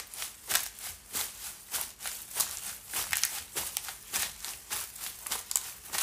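Footsteps crunching through dry fallen leaves at an even walking pace, about two steps a second, each step a crackling rustle.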